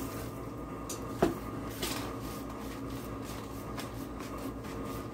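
Gloved hands handling ground-beef mixture and pressing it into a foil-lined pan, with faint crinkles of the aluminium foil and one sharp knock a little over a second in, over a steady background hum.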